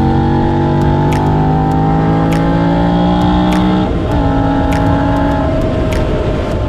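Motorcycle engine heard from onboard, revs climbing steadily under acceleration, then an upshift about four seconds in drops the revs before it pulls on steadily.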